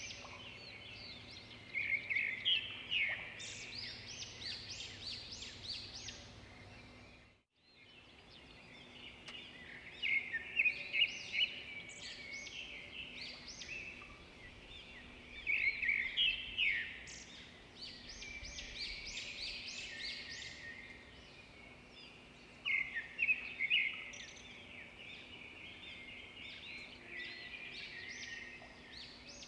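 Many small birds chirping and twittering together in busy, high-pitched bursts. The sound cuts out for a moment about seven seconds in.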